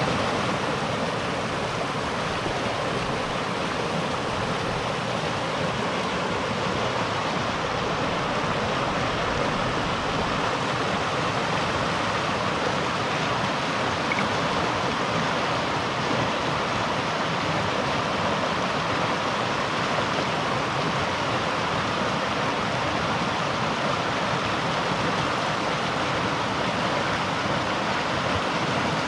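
River water rushing and splashing in a steady, unbroken flow.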